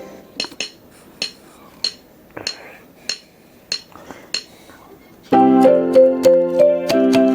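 Casio LK-280 electronic keyboard: for about five seconds only a light percussion pattern of sharp ticks, about one every 0.6 s, is heard. Then the full sustained chord and melody accompaniment comes back in suddenly.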